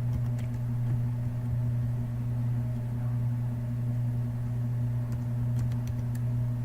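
Steady low electrical hum with a faint second tone above it, and a few faint clicks now and then.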